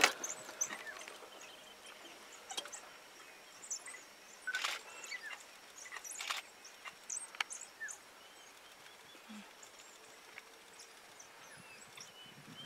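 African wild dog pack twittering in short high chirps while mobbing a waterbuck, with a few sharp knocks scattered through.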